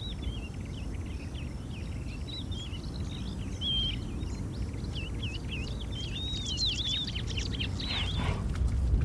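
Wild birds singing, many short chirps and warbling phrases one after another, over a steady low rumble that grows louder near the end.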